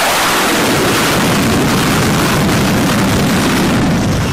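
F/A-18 jet engines running at full power during a catapult launch from the flight deck: a loud, steady roar.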